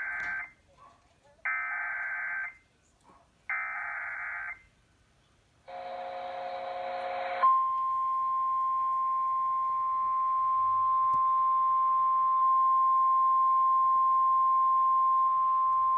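Emergency Alert System SAME header: three short screechy bursts of data tones, about a second apart. After a brief buzzy tone comes the long, steady single-pitch warning alarm tone that precedes a severe thunderstorm warning message.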